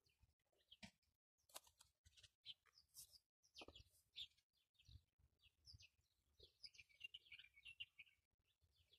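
Faint small-bird chirping, with a quick run of twittering calls near the end. Soft clicks and rustles of hands handling an avocado pit and toothpicks.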